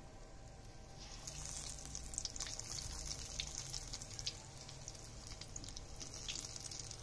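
Battered capsicum pakoras deep-frying in hot oil in an iron karahi, with more pieces being dropped in. The sizzle swells about a second in, with steady fine crackling.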